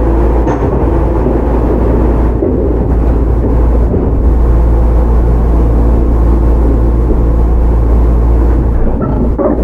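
Running sound of a Shizuoka Railway 1000 series resistance-controlled electric train heard from inside the car: a loud, steady rumble from the wheels and track with a low hum from the running gear.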